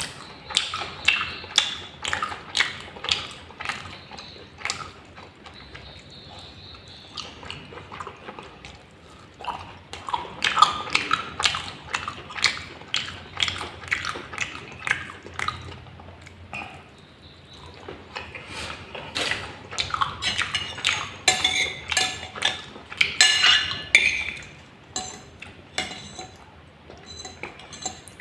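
Close-miked eating sounds: wet chewing and mouth clicks in irregular clusters, with an occasional clink of a utensil on a plate.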